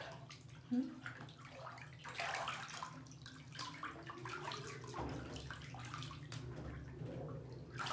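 Bath water sloshing and splashing in irregular small splashes as a child is bathed in a tub.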